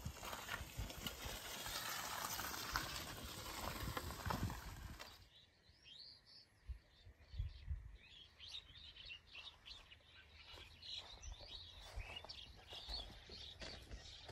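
Outdoor sound: a steady noisy rush that cuts off abruptly about five seconds in, followed by small birds chirping over a quiet background with a few low thumps.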